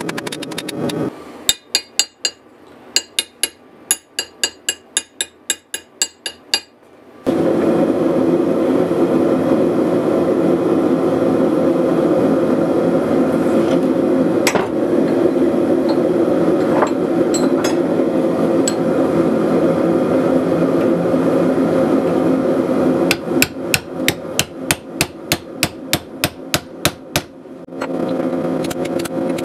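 Hand-hammer blows on red-hot rebar over a Hay Budden anvil, ringing, about three a second for some five seconds. Then a long steady loud hum, and near the end another quick run of hammer blows, about four a second.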